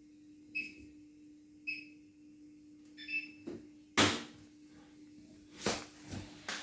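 Bosch WGA252Z0TR washing machine control panel beeping as buttons are pressed: two short single beeps and a third with several tones. Then a few clunks, the loudest about four seconds in.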